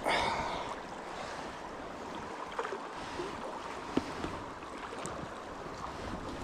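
Steady rush of flowing river water, with a brief louder swish right at the start and a few faint clicks, one sharper about four seconds in.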